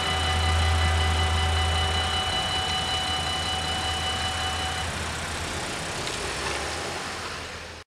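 Road traffic at a level crossing: car engines running as the waiting cars pull away after the barriers rise. A steady high whine runs under it and stops about five seconds in. The sound cuts off abruptly just before the end.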